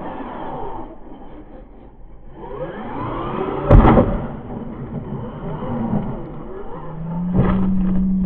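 Traxxas Maxx V2 RC monster truck's brushless motor whining up and down in pitch while airborne, then one loud crash as it lands hard about four seconds in, knocking a wheel off. Afterwards the motor whine rises again and holds a steady pitch as the truck drives on.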